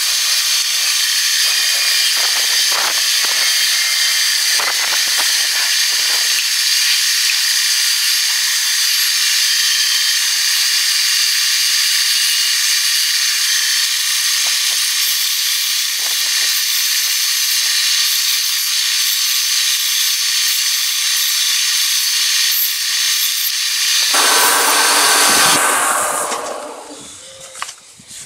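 Benchtop belt sander (linisher) running with a birch wooden cup pressed against the belt, a loud steady hiss of sanding. Near the end it is switched off and winds down with a falling pitch.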